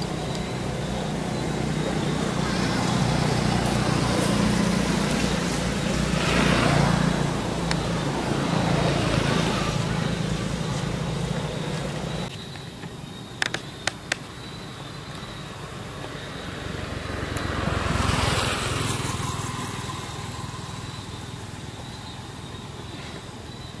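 Motor vehicles passing by twice, each swelling up and fading away, over a low steady engine hum that cuts off abruptly about halfway through. Three sharp clicks just after the hum stops.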